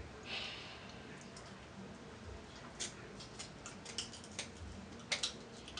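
Scissors snipping through crab-leg shell: scattered sharp clicks and crunches, starting about three seconds in and thickest near the end.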